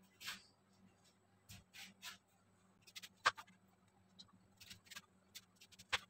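Chef's knife cutting through peeled pumpkin on a plastic cutting board: faint, irregular taps and scrapes of the blade, the loudest about three seconds in.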